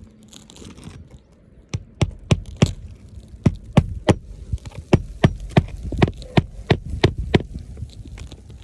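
Hammer driving roofing nails back into a shingle: about seventeen sharp strikes, roughly three a second, after a quiet start. It is part of a repairability test on a wind-creased shingle.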